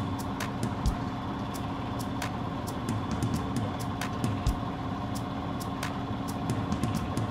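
Sailboat's inboard engine running steadily under way, a constant hum, with frequent irregular sharp clicks over it.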